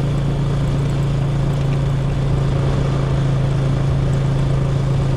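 Steady low engine drone of the moving vehicle carrying the camera, cruising at an even speed, with road and air noise over it.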